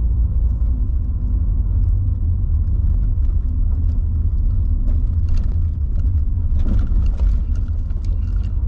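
Nissan SUV driving on a paved road: a steady, loud, low rumble of tyre and engine noise.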